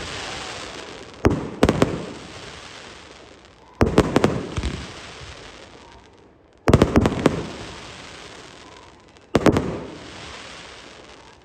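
Aerial fireworks shells bursting every two to three seconds. Each burst is a loud bang or a quick cluster of bangs, followed by a tail that fades away.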